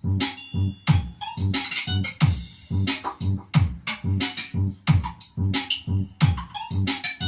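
Electronic sound-check remix music: a fast, steady beat of heavy bass kicks, several dropping in pitch, under synth and effect sounds.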